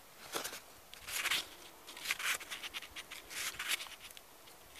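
Pages of a printed book being flipped through by hand: a handful of short, irregular papery rustles.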